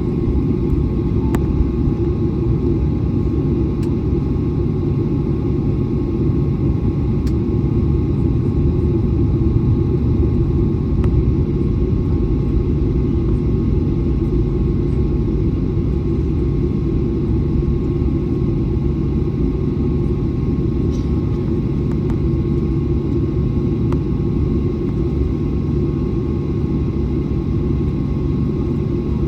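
Jet airliner taxiing: a steady low rumble with a thin, constant whine above it and a few faint ticks.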